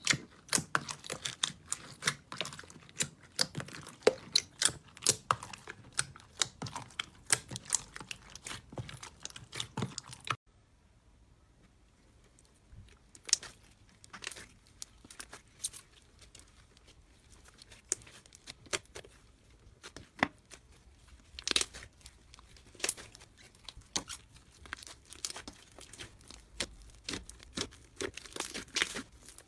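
Slime being squeezed, stretched and pressed by hand, giving dense crackling and popping clicks. About ten seconds in the sound cuts off abruptly and a quieter stretch follows, with sparser, separate pops.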